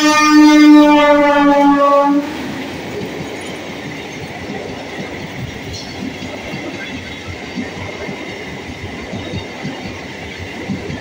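MEMU electric train's horn blaring loud and steady for about two seconds, its pitch dipping slightly just before it cuts off. Then the train's coaches rush past at speed, their wheels clattering rapidly over the rail joints.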